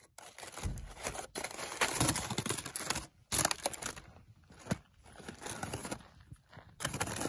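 Aluminium foil crinkling and rustling in irregular bursts as a foil cooking packet is handled and pulled open.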